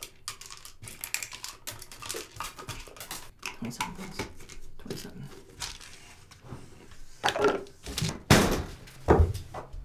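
Plastic pill bottle handled close up: quick clicks and small rattles of the childproof cap and pills, then a few louder, heavier thumps in the last few seconds.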